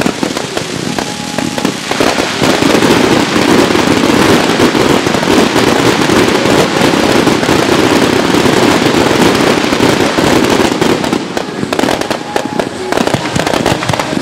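Professional aerial fireworks firing a dense barrage: launches and bursts overlapping into continuous bangs, thinning briefly near the end.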